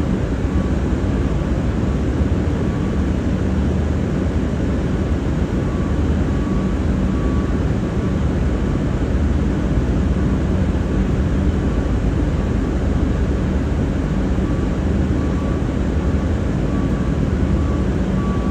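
V/Line VLocity diesel railcar running at speed: a steady low drone of engine and rolling noise, with a faint high tone coming and going.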